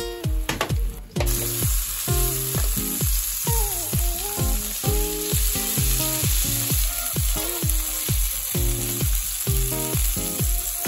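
Pork-wrapped cherry tomatoes sizzling in hot oil in a frying pan. The sizzle starts suddenly about a second in and stays steady, under background music with a steady beat.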